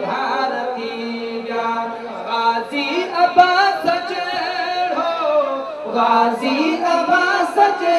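A man singing a Sindhi naat unaccompanied into a microphone, in long held notes that glide up and down.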